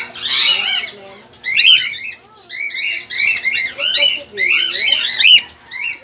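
Several cockatiels chirping, a dense run of quick, repeated rising-and-falling calls overlapping one another, with a short harsh burst right at the start.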